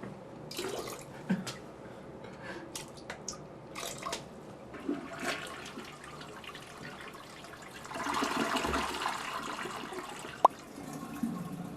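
Water from a jar splashing into an electronic bidet toilet's bowl in short irregular spurts, then the toilet flushing with a rushing hiss from about eight seconds in. A short beep sounds near the end.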